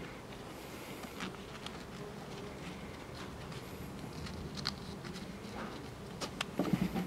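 Nylon webbing rustling and sliding through a plastic strap buckle as it is threaded and adjusted by hand, with scattered light plastic clicks and a quick cluster of clicks near the end.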